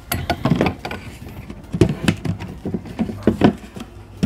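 Snap-on lid of a 16-litre plastic bucket being pried off, its rim popping free in a series of irregular sharp clicks, with a knock as a power drill is set down on a wooden table.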